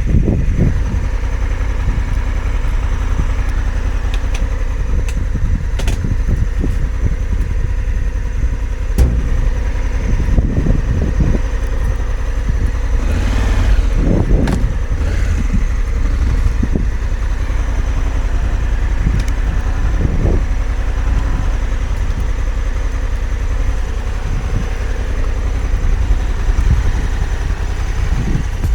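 Honda Africa Twin CRF1100L motorcycle's parallel-twin engine running steadily as the bike is ridden, under a heavy low rumble with scattered short knocks and clatter.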